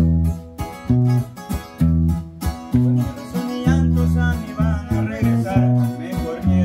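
Instrumental break in a song: strummed guitars over steady bass notes on the beat, with a plucked lead guitar melody on top.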